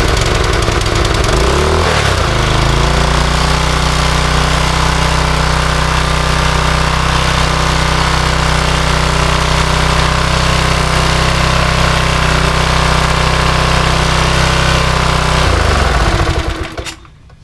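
Briggs & Stratton single-cylinder engine on a power washer running steadily after starting on its rebuilt carburetor. Its speed wavers briefly at first, settles, then the engine shuts off near the end.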